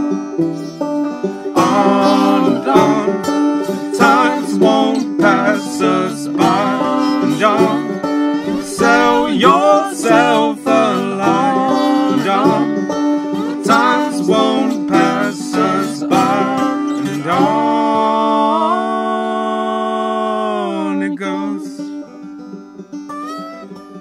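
Banjo and acoustic guitar playing a busy plucked instrumental passage together. About eighteen seconds in they settle into a long held chord that fades out, with a few soft notes after.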